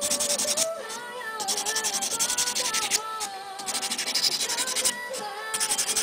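Quick back-and-forth scraping strokes of a hand-held grinding stone over the jinoko-lacquer foundation on a bamboo spoon's bowl, coming in runs of rapid strokes with short pauses between them: the foundation layer being ground smooth. Background music with a melody plays under it.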